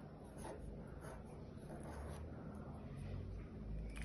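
Felt-tip marker writing on a sheet of paper in short, faint strokes, finishing a word.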